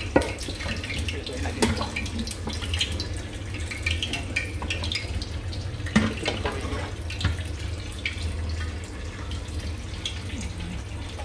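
Hot cooking oil in a frying pan crackling with many small scattered pops, heated and ready for deep-frying, over a steady low hum. A few sharper knocks stand out about a second and a half in and again around six seconds in.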